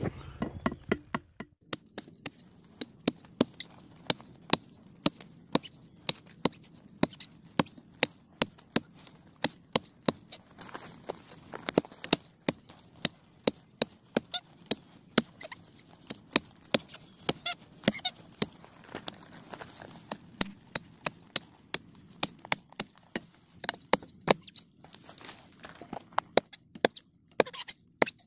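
Repeated chopping blows from a knife cutting at the base of a bamboo shoot to harvest it. The sharp strikes come about two a second, with a few short pauses.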